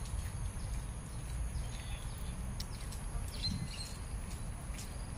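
Scattered short bird chirps over a low steady rumble from a handheld phone carried on a walk.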